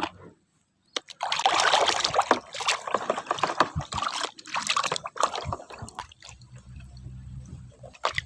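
Water splashing, sloshing and trickling as muddy plastic toy guns are rinsed by hand. It is busiest in the first couple of seconds, then breaks into scattered splashes and knocks.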